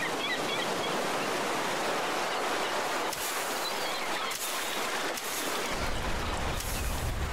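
Ocean surf washing onto a beach, a steady hiss of waves, with a deep low rumble coming in about six seconds in.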